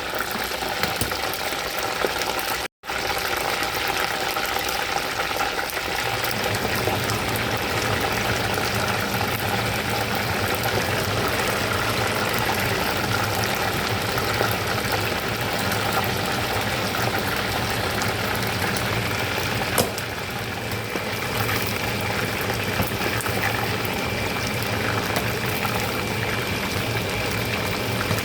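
Chicken drumsticks deep-frying in hot oil, a steady bubbling sizzle, with a brief dropout about three seconds in.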